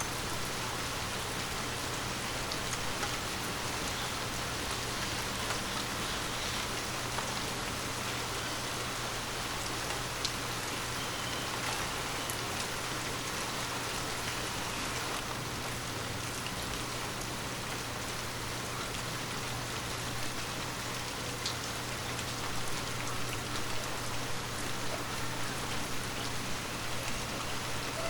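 Light rain falling steadily, a continuous hiss with scattered individual drop ticks.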